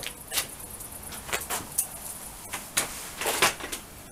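A string of knocks, clicks and scrapes as a person moves about and sits back down on a wooden garden chair on stone paving. The loudest is a short scrape about three and a half seconds in.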